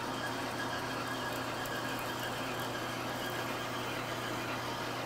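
Metal lathe running steadily as a parting tool is fed in to cut off a piece of Delrin plastic: an even machine hum with faint higher tones.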